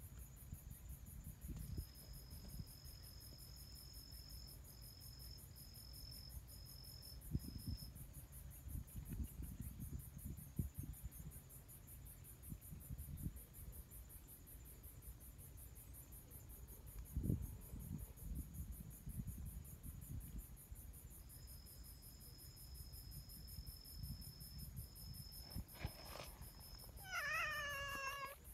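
Insect song in the background: a thin, high, steady trill that runs for several seconds and ends in a few short pulses, heard twice. Near the end a tabby cat gives a short, wavering meow.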